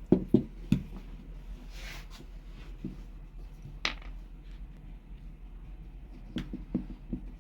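Light knocks and clicks of small parts and tools being handled on a workbench, with no motor running: three quick knocks at the start, a single click near the middle, and a few more knocks near the end.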